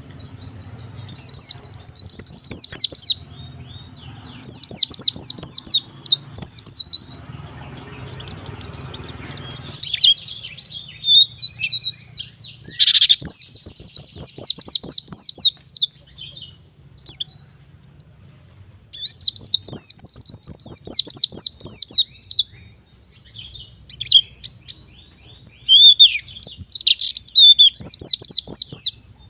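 A white-eye (pleci) in full song: about six bursts of fast, high-pitched chattering notes, each a few seconds long with short pauses between, over a low steady hum.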